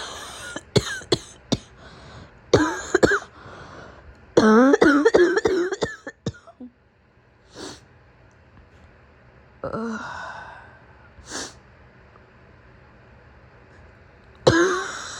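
A sick woman coughing in fits: a quick run of sharp coughs, then longer, voiced hacking coughs, a few seconds of breathing, and one more cough near the end.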